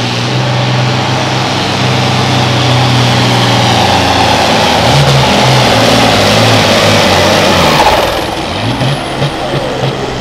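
International Harvester farm tractor's turbocharged diesel engine running at full throttle under heavy load, pulling a weight-transfer sled. About eight seconds in the throttle is cut: the engine note drops and wavers, and a high whistle falls away.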